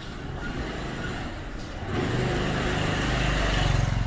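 A motor vehicle's engine passing close by, growing louder from about halfway through and peaking near the end.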